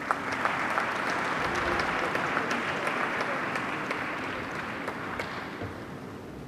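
Audience applauding, steady at first and fading out near the end.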